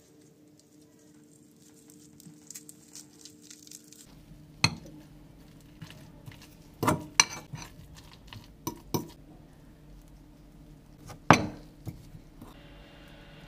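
Soft squishing as roasted garlic cloves are squeezed into a bowl of butter and parsley, then a metal fork mashing and stirring the mix, with several sharp clinks against the bowl.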